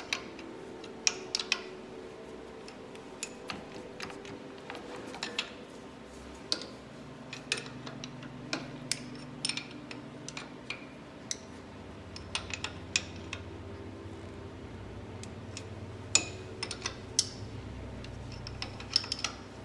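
Scattered metal clicks and clinks of a 14 mm wrench on the nuts of a lathe's compound rest as they are tightened to lock the rest at its new angle, over a faint steady hum.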